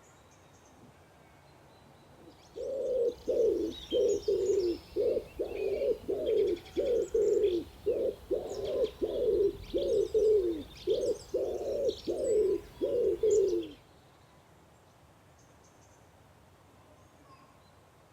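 A dove cooing in a long run of low, slightly falling coos, about two a second for some eleven seconds, with small birds chirping faintly higher up, then it stops.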